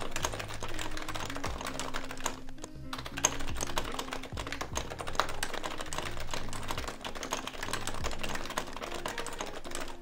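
Continuous rapid typing on an HHKB (Happy Hacking Keyboard) with Topre switches, with a short pause about two and a half seconds in. Background music with low held notes plays underneath.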